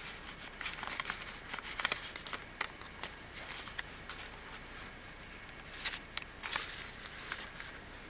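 Paper rustling and crinkling as hands unfold a folded sheet and slide it into a pocket of a handmade paper journal, in short scattered rustles that are loudest about a second in, near two seconds and around six seconds.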